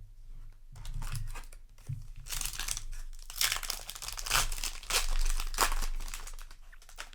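Foil booster-pack wrapper crinkling and tearing open in the hands, a dense run of crackling that builds to its loudest in the middle and fades near the end.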